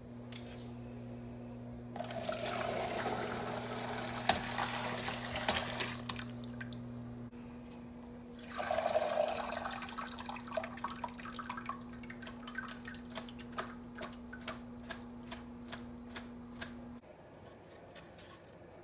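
Hot chicken broth poured through a plastic colander into a bowl in the sink: a long pour, a short second pour, then broth dripping from the lifted colander in scattered drips, about two a second. A steady low hum runs underneath and stops near the end.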